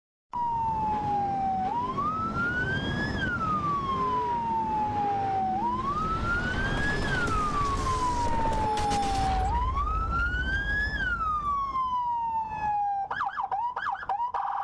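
Emergency vehicle siren wailing in three slow rising-and-falling cycles of about four seconds each, then switching to a fast warble near the end, over a low rumble.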